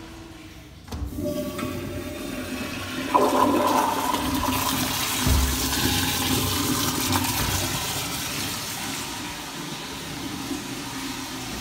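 A Kohler commercial toilet flushing through its chrome flushometer valve. The valve opens about a second in with a sudden rush of water, and the flow surges louder about three seconds in. It then rushes steadily down the bowl, slowly easing.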